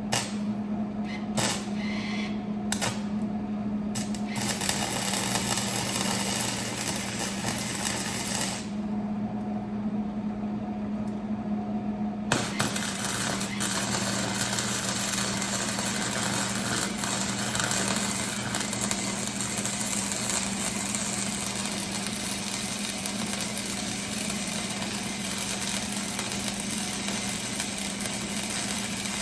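Electric arc welding on steel leaf spring slider brackets. A few short stabs of the arc come first, then a crackling, buzzing weld run of about four seconds. After a pause, a longer continuous run starts about twelve seconds in. A steady low hum sits underneath.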